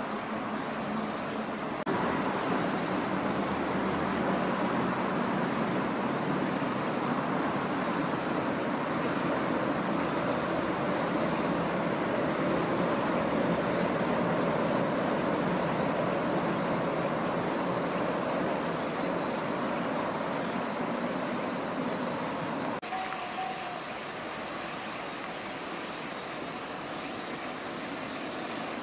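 Distant green JR 201 series electric commuter train crossing a river bridge: a rumble that swells to its loudest around the middle and then fades away, over the steady rush of river rapids.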